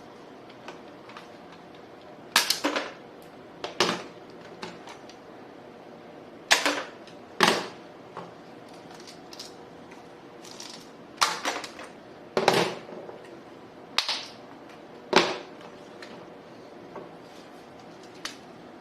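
Toy guns firing: about eight sharp snaps, several in quick pairs, with fainter clicks of handling and cocking between.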